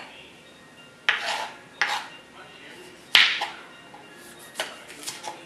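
Kitchen knife cutting a ginger root against a cutting board: about six sharp, irregular knocks, the loudest a little after three seconds in.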